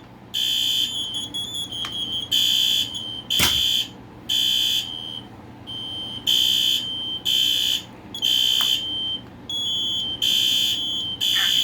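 Many smoke alarms sounding at once, out of step with one another. Their high-pitched half-second beeps, at slightly different pitches, overlap in a jumble, with a sharp click about three and a half seconds in.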